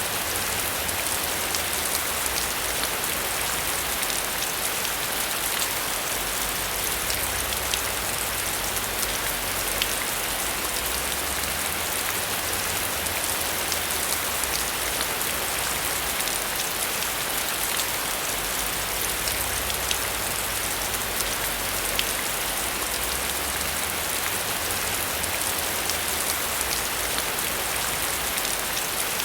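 Steady rain: a dense, even hiss with many sharp drop ticks scattered through it, over a low, uneven rumble.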